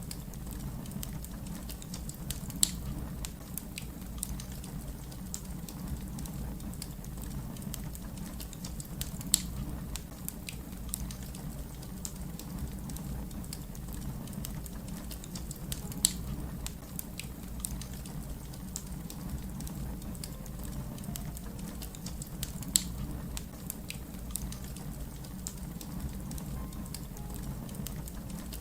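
Fire crackling: a steady low rumble with many small crackles and four louder, sharp pops spread evenly through it.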